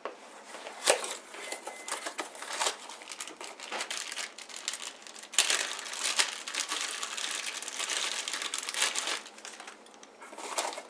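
Plastic packaging crinkling and rustling as it is handled and torn open by hand, with a couple of sharper knocks.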